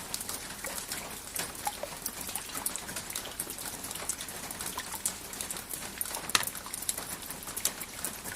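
Rain falling steadily, with many irregular drops ticking and pattering on a surface over an even hiss.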